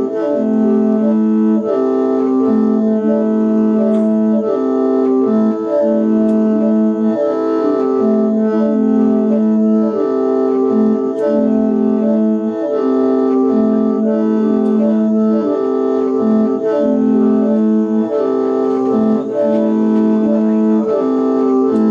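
Mro plung, a gourd-and-bamboo mouth organ, playing a repeating tune in which several notes sound together over held tones, with no break.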